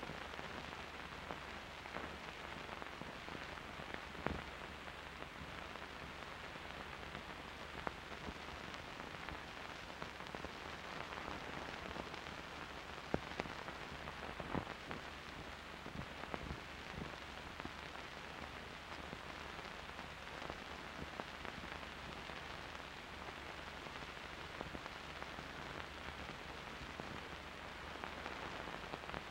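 Steady hiss and crackle of an old film soundtrack, with a few scattered clicks and pops.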